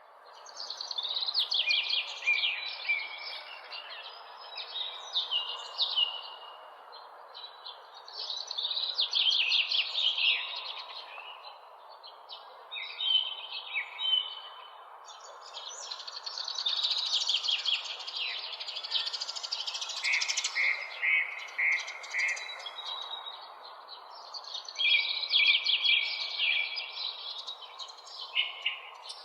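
City park ambience: several songbirds chirping and singing in quick trilled phrases over a steady hum of distant city noise. The sound fades in at the start.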